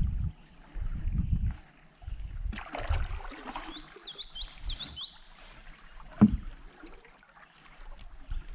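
Water splashing and sloshing as a canoe is taken through a shallow, rocky channel, with a sharp hollow knock about six seconds in. A bird calls a quick run of five or six rising notes about four seconds in.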